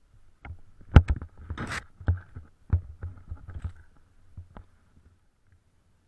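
Snowboard knocking and scraping over rough, crusted snow: a run of irregular thumps, the loudest about a second in, with a short hiss of snow just after, stopping about five seconds in.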